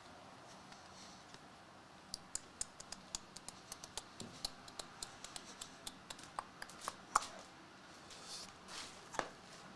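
Hands opening trading card packaging: a quick run of small sharp clicks and crinkles, several a second, then a brief rustle and one last click near the end.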